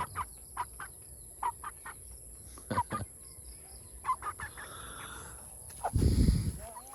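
Chickens clucking in short, separate calls, over and over. Near the end a loud low rumble lasts about a second.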